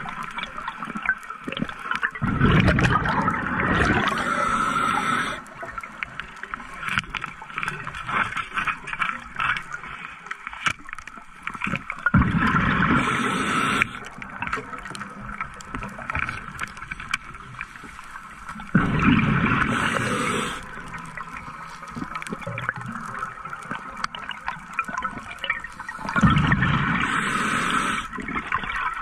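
Open-circuit scuba diver breathing through a regulator underwater: four loud rushes of exhaled bubbles, one about every seven seconds, each lasting a second or two. Quieter inhalations with small clicks and crackles come between them.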